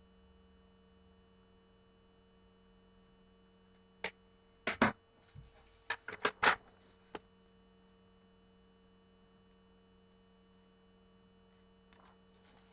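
A quick cluster of sharp clicks and knocks, about eight in three seconds, starting about four seconds in, with a couple of faint ones near the end, over a steady low electrical hum.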